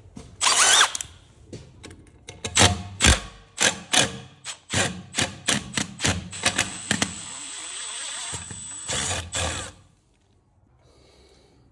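Milwaukee cordless impact driver hammering in a series of short bursts, then one longer run of about two seconds with a high whine, backing a rusty screw out of an old horse drinker's metal bracket. It stops near the end.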